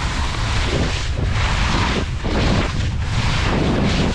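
Skis swishing and scraping through soft spring snow in linked turns, a surge of hiss about once a second, over wind buffeting the camera's microphone as a low rumble.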